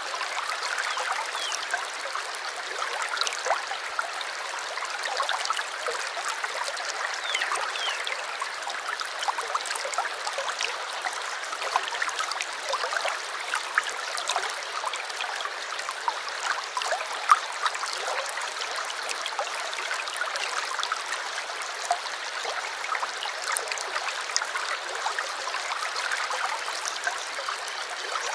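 A small stream trickling and gurgling steadily, with many small splashes and drips.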